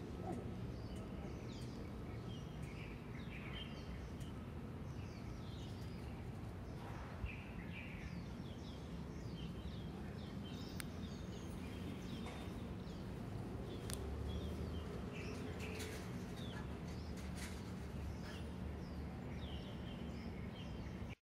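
Small birds chirping again and again over a steady low rumble of outdoor background noise; the sound cuts off abruptly just before the end.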